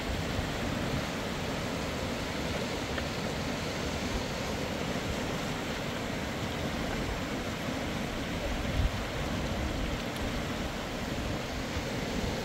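Steady rushing of a fast river flowing over a stony bed, with a brief low thump about nine seconds in.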